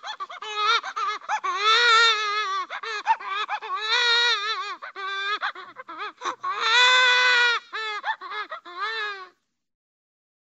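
Cartoon baby crying sound effect: high-pitched wailing, several long wavering wails broken up by short choppy sobs, cutting off about nine seconds in.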